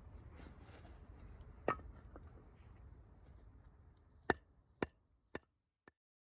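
A low rumble fading away, a single sharp knock, then four sharp clicks about half a second apart, each fainter than the last, before the sound cuts to silence.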